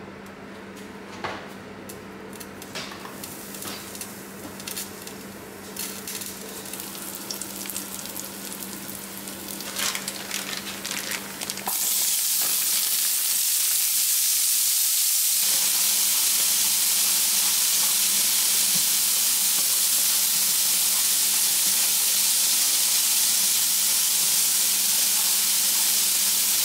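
Edamame and seasonings hitting a preheated pan, starting suddenly about halfway through and then sizzling loudly and steadily. Before that there are scattered light clicks and knocks over a faint steady hum.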